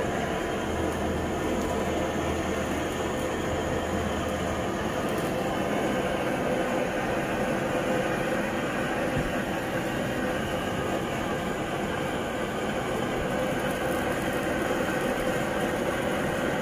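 Handheld butane blowtorch burning with a steady hiss as its flame is played over a buffalo foot to singe off the hair.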